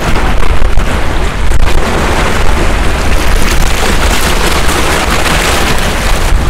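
Wind buffeting the microphone: a loud, continuous rumbling rush of noise with gusty peaks.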